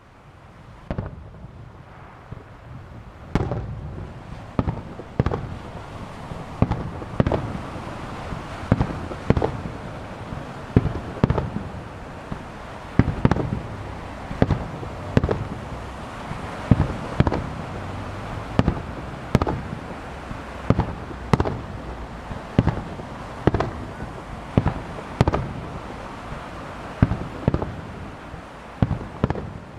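Firework shells of a sea-launched star mine bursting in rapid succession. The sharp booms come about one to two a second over a continuous rumble, and the barrage builds up a few seconds in.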